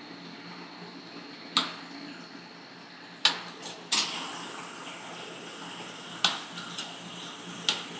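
Metal ice-cream spatulas knocking and scraping on a rolled-ice-cream cold plate: sharp metallic clicks at irregular intervals, with a scraping hiss from about halfway through.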